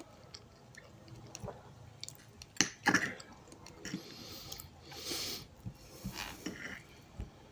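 Close-up chewing and eating: irregular wet mouth clicks and smacks, with a few brief rustling swishes.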